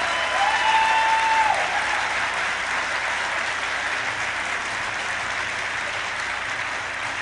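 Audience applauding, with a voice cheering over the clapping in the first second or two; the applause then slowly dies down.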